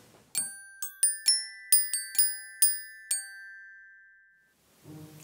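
A short jingle of bright, bell-like struck notes like a glockenspiel: about eight quick strikes in under three seconds, the last two notes ringing on and fading away.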